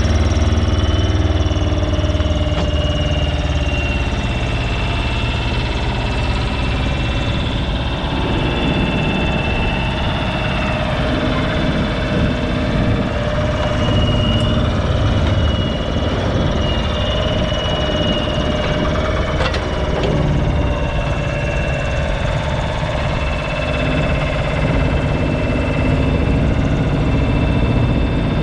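Smalley mini digger's engine running steadily under load as the machine digs, with a steady high whine over the engine note and one sharp clank about two-thirds of the way through.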